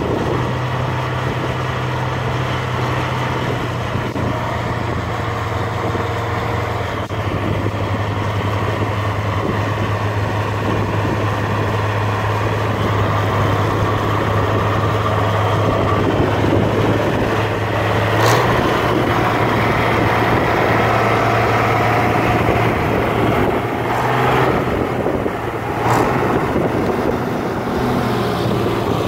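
International Harvester tractor's engine running steadily under load as it pulls a tillage implement through the field, a constant low drone. Two brief clicks come through, the first about two-thirds of the way in, the second near the end.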